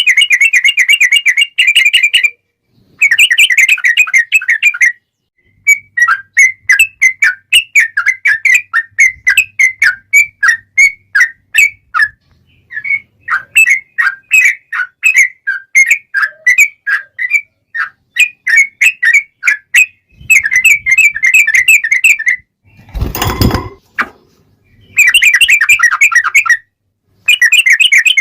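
Yellow-vented bulbul song: loud bursts of fast, rattling trills, each about two seconds long with short gaps between, and a looser run of repeated notes through the middle. A brief loud noise breaks in about 23 seconds in.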